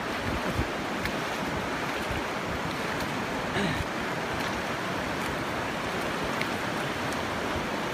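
Fast mountain river rushing over rapids and stones: a steady, even roar of water.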